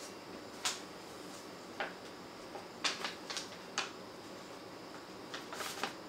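Motorized display turntable running, with a faint steady high-pitched whine over hiss and about a dozen light, irregular clicks and ticks, several in quick succession in the middle and a cluster near the end.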